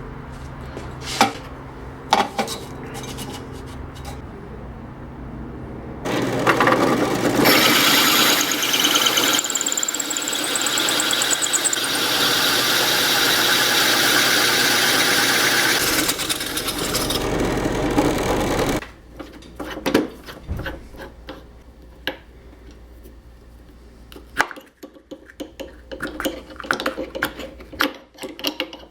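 A workshop power tool working a piece for about thirteen seconds, loud and noisy with a brief rising whistle, after a steady low hum and a few sharp clicks. Near the end come scattered knocks and handling noises.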